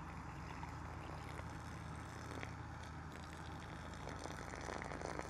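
Faint trickle of pasta cooking water poured from a small metal camping pot onto grass.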